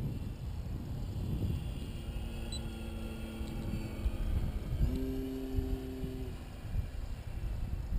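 Wind buffeting the microphone, with the hum of a Dynam Waco RC biplane's electric motor and propeller flying past. A louder, steadier motor note comes in about five seconds in and cuts off just over a second later.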